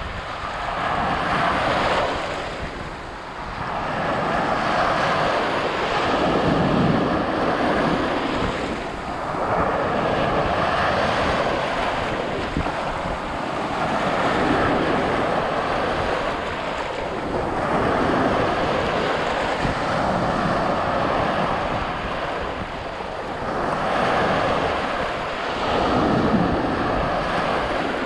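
Sea waves breaking and washing ashore, the surf swelling and falling back every four seconds or so, with wind rumbling on the microphone.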